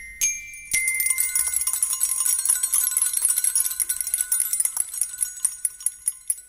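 Tinkling tuned metal percussion: a single high struck note, then from under a second in a dense shimmer of quick small strikes over several ringing tones, thinning out near the end.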